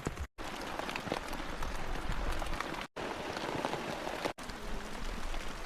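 Heavy rain pouring down steadily, with sharp individual drop hits close by. The sound cuts out briefly three times.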